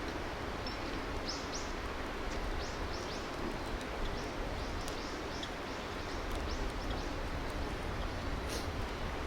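A small bird calling in a quick series of short, high, downward-sliding chirps over a steady rushing outdoor noise. A single sharp crackle comes near the end.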